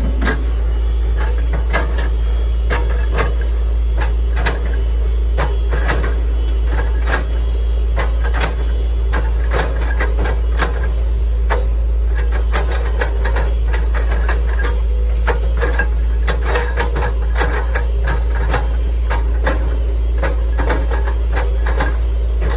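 Hitachi ZX110 MF excavator's diesel engine running steadily under work, with many irregular sharp clanks and cracks from the machine and its bucket working palm trunks.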